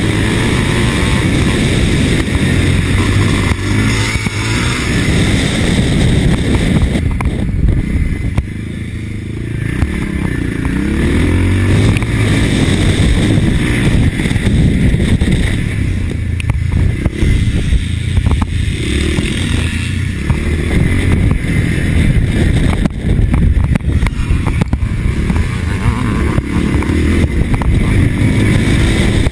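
Single motocross motorcycle engine, a 1983 Husqvarna TC 500, running hard and revving up and down. The throttle eases off about eight seconds in, then the revs climb again.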